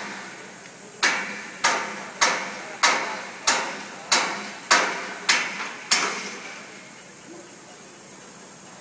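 Nine hammer blows struck on the scaffolding, a little more than half a second apart, each ringing briefly. They stop about six seconds in.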